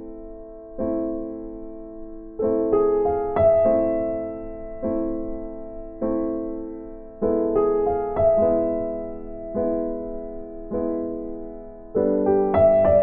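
Background music: a soft piano playing slow chords, each one struck and left to fade.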